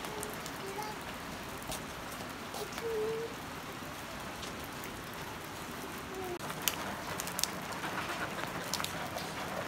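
Steady light rain falling on wet ground and surfaces, with occasional sharp drips and a few short, faint bird calls.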